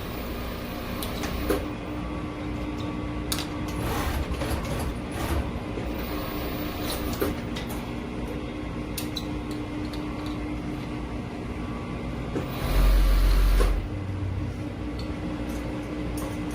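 Industrial interlock sewing machine in a workshop: a steady machine hum with scattered clicks and knocks, and about thirteen seconds in a loud run of the machine lasting about a second.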